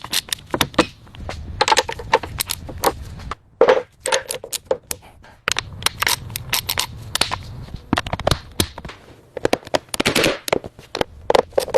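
Rapid, irregular metallic clicks and clanks of tools working on bolts and metal parts, with short pauses a few times.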